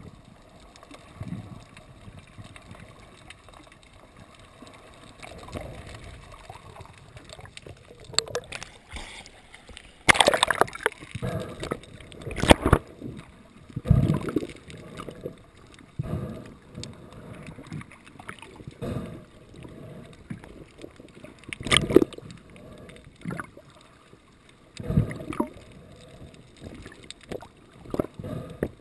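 Water gurgling and sloshing close to the microphone, with a series of loud, irregular splashes starting about ten seconds in.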